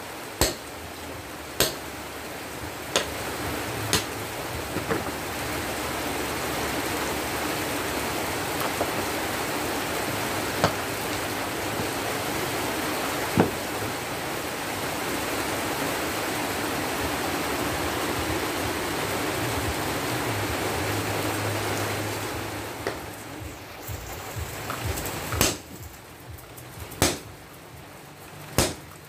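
Sledgehammer blows on hot breaker-chisel steel being forged into a machete on the anvil, about one every second or so. A few seconds in, the blows stop and a steady rushing hiss of air blown through the forge fire takes over while the blank reheats. It dies down a little after twenty seconds in, and the hammer blows start again near the end.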